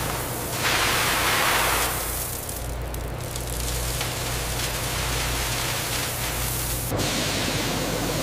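Shredded tire rubber granules pouring from a chute into a silo: a steady rushing hiss, louder for a second or so shortly after the start. About seven seconds in it changes abruptly to a different steady rushing noise.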